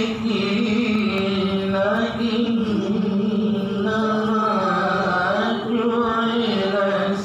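A young girl's voice reciting the Quran in the melodic tilawah style through a handheld microphone: one long held phrase with ornamented turns in pitch.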